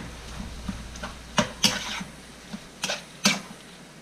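A spatula stirring minced pork in a nonstick frying pan, making a few irregular knocks and scrapes against the pan.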